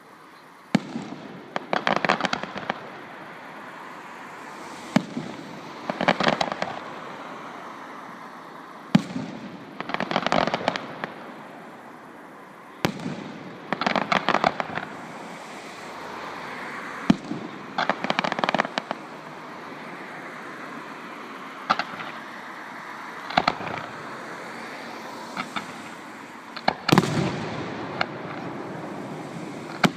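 Fireworks display: a sharp bang followed by about a second of crackling, repeating roughly every four seconds, with the loudest burst near the end.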